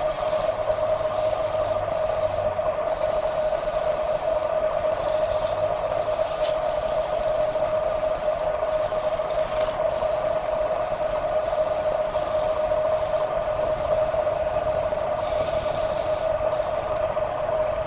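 Wood lathe running with a steady hum, while the spinning wood is worked with a rubbing, sanding-like hiss that breaks off briefly several times.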